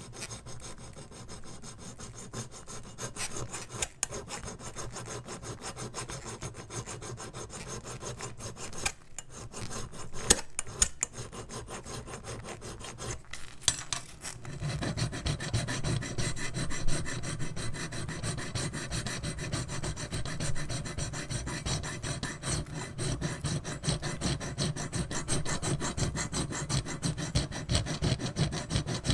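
A flat metal file rasping back and forth over the bare die-cast metal body of a Ferrari F50 model car in quick, even strokes. The filing gets louder and fuller about halfway through, with a few sharp clicks along the way.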